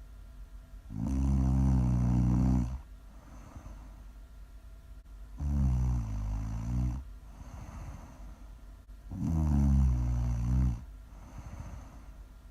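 Loud snoring: three long snores, each about a second and a half, coming roughly every four seconds, with quiet breathing between them.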